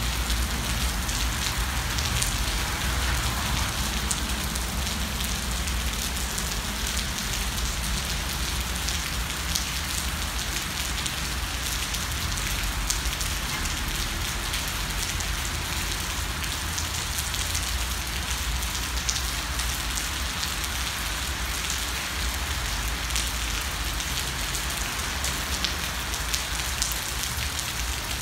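Steady rain falling on pavement, with many small drip ticks over a low rumble.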